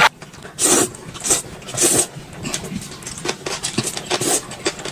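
Noodles being slurped and chewed: a few loud, hissing slurps in the first two seconds, then smaller wet chewing and smacking noises.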